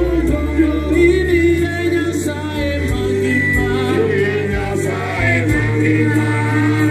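A group of men singing a Swahili gospel song into handheld microphones, backed by an electric keyboard with a bass line that steps from note to note.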